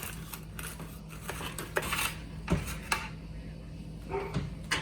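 A knife cutting into a baked galette-style pie, with a series of separate metal clinks and scrapes of the blade against the dish beneath.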